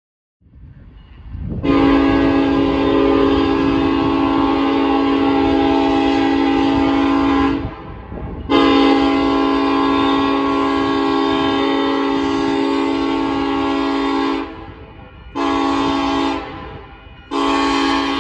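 Nathan K5LLA five-chime air horn on a Union Pacific SD70AH locomotive sounding the grade-crossing signal: two long blasts, one short, and the final long blast starting near the end. A low rumble runs underneath.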